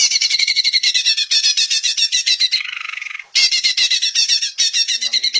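Cucak ijo (green leafbird) singing a loud, fast run of high chattering notes that starts abruptly, breaks off briefly about two and a half seconds in, then carries on.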